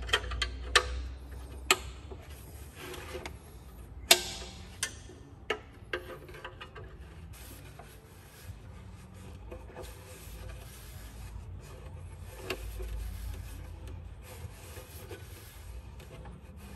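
Metal hand tools clinking and scraping against the exhaust manifold heat shield while a socket is fitted onto its 10 mm bolts. There are a handful of sharp clinks in the first six seconds, the loudest about four seconds in, then quieter rubbing with one more clink near the end.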